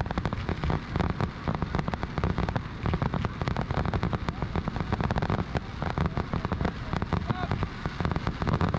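A fireworks display going off: a dense, rapid crackling of many small pops and bangs each second, over a low rumble.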